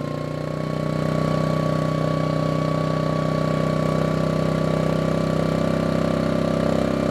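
Ryobi RYI2322E inverter generator's engine running steadily under electrical load, picking up speed and getting louder about a second in as the load is raised from roughly 650 toward 950 watts.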